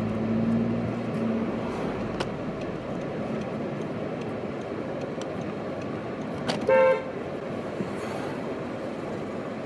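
Steady street traffic noise with one short car horn toot about seven seconds in, the loudest sound here.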